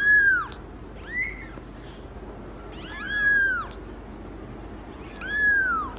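Young kitten mewing: four high-pitched mews, each rising and then falling in pitch, spaced a second or two apart. The second is short and fainter than the others.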